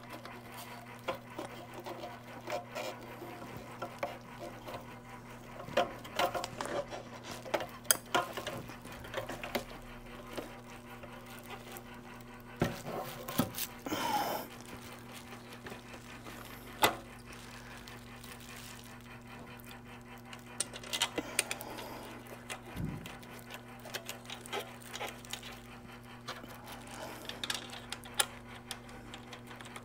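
Plastic and metal parts of a Mazda Connect master unit and its display housing clicking and knocking as they are handled and fitted together: scattered clicks and taps, one sharper click about 17 seconds in, over a steady low hum.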